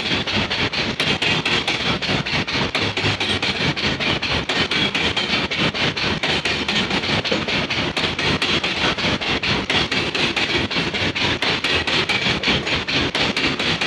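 Loaded coal hopper wagons rolling past close by, their wheels clattering over the rails in a rapid, steady stream of knocks. The track is very weak.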